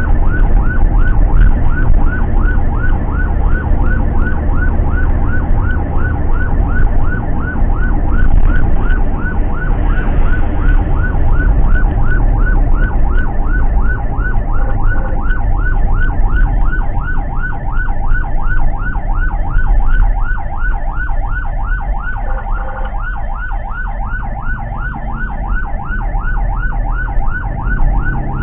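Ambulance siren sounding in a fast yelp, about three short rising sweeps a second. It is heard from inside the ambulance's cab over a low rumble of engine and road.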